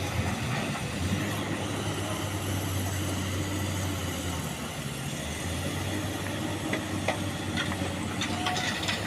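Diesel engine of heavy construction machinery running steadily, with a few short clicks or knocks near the end.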